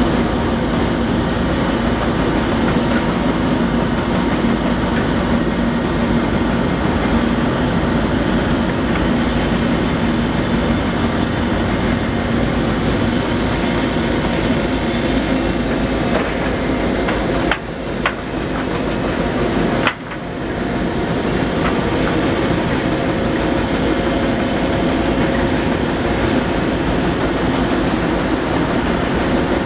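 Cat 325D L excavator's diesel engine running hard while its hydraulic breaker hammers on concrete, a continuous loud pounding. The noise dips briefly twice about two-thirds of the way through.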